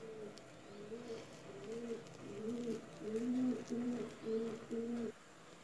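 A dove cooing: a run of soft, low coos at a nearly even pitch, about two a second, that stops about five seconds in.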